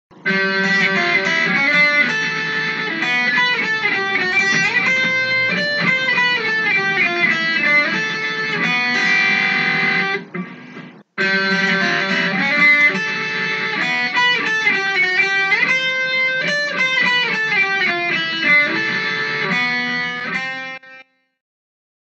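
Instrumental music with a fast guitar melody. It breaks off for about a second halfway through, starts again, and stops a second before the end.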